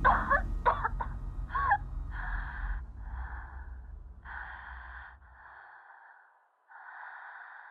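Processed sound-collage audio: a few short squeaky gliding vocal sounds in the first two seconds, then a run of breath-like hissing bursts, each under a second, fading out. A low rumble underneath stops a little past halfway.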